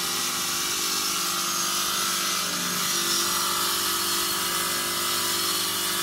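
Granite stone cutting and profiling machine running steadily, with a continuous machine hum under a dense hiss.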